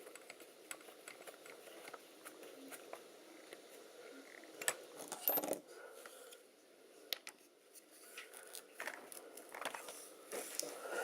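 Scattered small clicks and light metallic taps of a tool and small parts being handled while a nylock nut is tightened on a radio-controlled car's suspension wishbone, with a few sharper clicks about halfway through.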